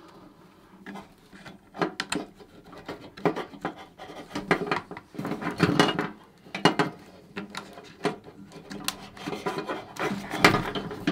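Hobby LiPo charger and plastic battery-lead connectors being handled and plugged into the charger's ports: irregular clicks and knocks with some rubbing of plastic.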